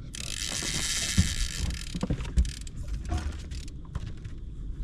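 A fishing reel's clicker ratchet rattling rapidly for about two seconds as line is pulled off, the sign of a fish taking the bait. It is followed by several knocks and clicks.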